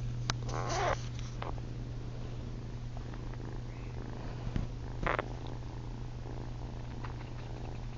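Kitten purring, a steady low hum, with a few short wavering sounds about half a second in and a brief sound about five seconds in.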